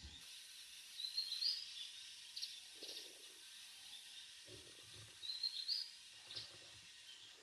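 Wild birds chirping faintly in the forest: short, quick rising calls, one group about a second in and another just past five seconds, with a few high ticks between them. Soft rustling comes in twice.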